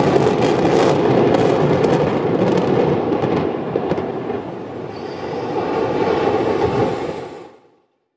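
Explosive demolition of a reinforced-concrete cooling tower: a dense crackle of blasting charges over a continuous rumble, the cracks thinning out after about three seconds. The rumble dips, swells again, then fades out quickly about seven and a half seconds in.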